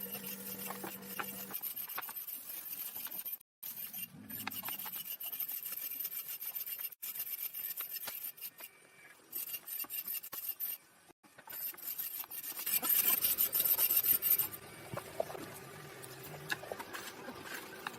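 Abrasive rubbing and scraping on wood, as in hand sanding or filing, in short edited stretches with brief drop-outs. It gets louder and hissier for a couple of seconds about two-thirds of the way through.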